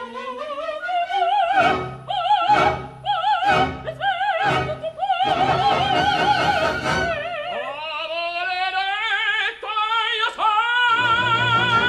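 Operatic singing with wide vibrato over orchestral accompaniment. The line is broken by consonants at first, then climbs gradually and settles on a long held note near the end.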